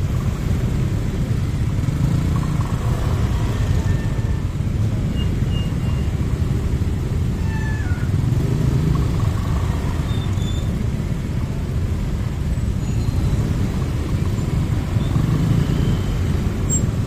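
Motor scooter engines idling and creeping in stop-and-go traffic: a steady low rumble that swells a few times, with a few faint short high-pitched calls over it.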